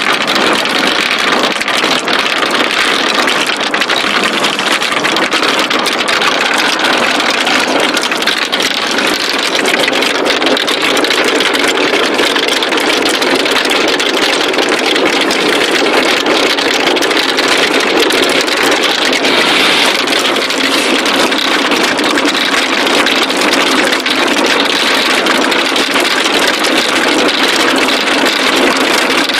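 Many marbles rolling and clattering down a wooden marble-run slope, a dense, steady rattle.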